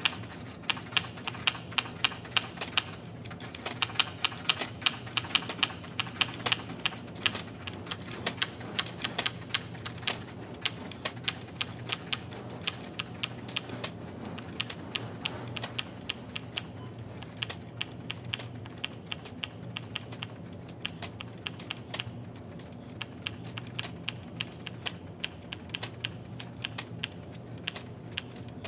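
Manual typewriter keys struck in a fast, uneven run of sharp clacks, over a low steady hum.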